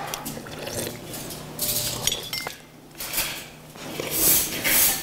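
Eating at a crowded table: metal chopsticks and spoons clinking against ceramic bowls and dishes, with several short, noisy bursts of eating sounds, the loudest near the end.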